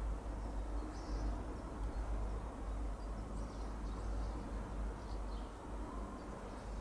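Background ambience: a steady low rumble with a few faint, short bird chirps.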